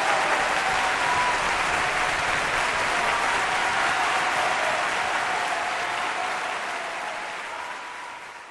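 Crowd applause, steady and dense, gradually fading out toward the end.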